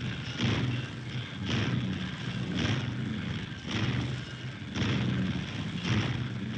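Heavy machinery running: a deep steady drone with a pounding stroke about once a second.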